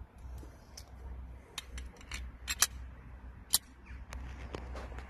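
Small sharp clicks and taps from handling the field-stripped parts of a gas airsoft Glock 17 replica (slide, recoil spring and guide rod) as it is put back together. About half a dozen separate clicks are spread over a few seconds, above a low steady rumble.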